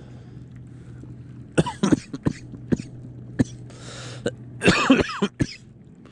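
A person coughing hard in short fits, a cluster of harsh coughs about one and a half seconds in and another, louder cluster near the end, over the steady low hum of an electric trolling motor.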